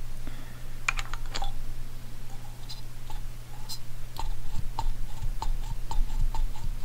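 Light clicks and ticks from a freshly rebuilt, lubed Honda Goldwing GL1500 rear brake master cylinder as its piston is pushed in and out by thumb to test the action: a few sharp clicks about a second in, then a quick run of ticks about three a second in the second half. A steady low hum runs underneath.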